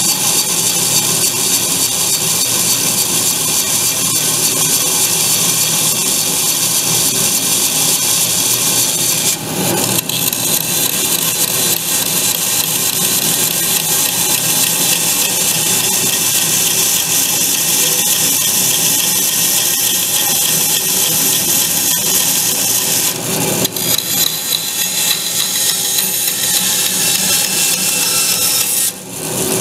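Band saw running and cutting a wooden board, its blade bent with an S-shaped kink and knocking as it pounds in and out of the cut. The knocking comes from the bent blade, not from a badly adjusted thrust bearing.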